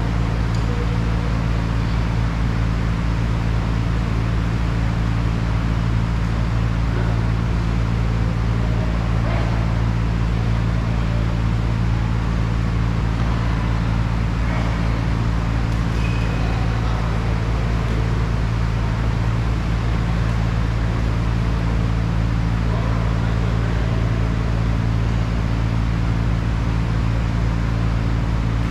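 Steady low machine hum made of several constant tones, with faint voices far off.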